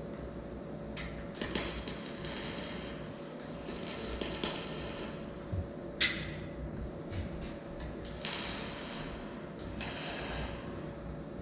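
Electric arc welding on a steel frame: the arc crackles and sizzles in about five short bursts, each lasting about half a second to a second and a half, with brief pauses between them.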